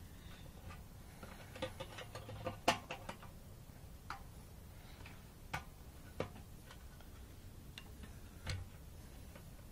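Scattered small clicks and taps of plastic and metal parts of a motorcycle's fuel pump and filter assembly being handled and fitted by hand, a few seconds apart, with one sharper click about two and a half seconds in.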